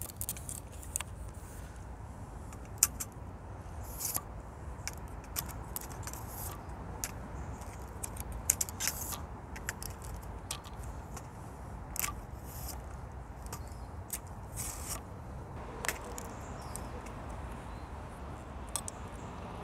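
Linkcool 42 aluminium camera tripod being unfolded and set up by hand: scattered sharp clicks and light metallic rattles as its legs, leg locks and head are opened. A steady low background noise runs beneath.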